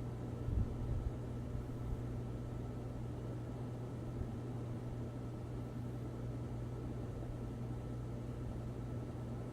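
NuTone Verandah Deluxe ceiling fan running with a steady motor hum, its freshly replaced bearings not yet broken in. A couple of soft low thumps come in the first second.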